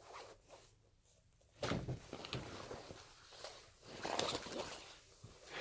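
Soft handling noise: a bump, then rustling as a paperback book and a fabric backpack are moved about, after a quiet first second and a half, with the rustling swelling again about four seconds in.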